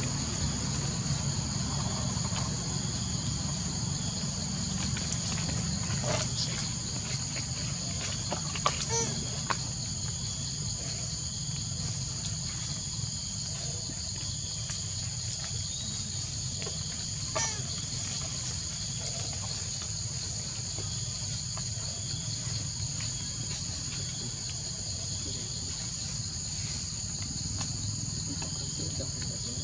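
Steady high-pitched insect chorus of crickets or cicadas droning in several layers over a low rumble, with a few brief squeaks a handful of times.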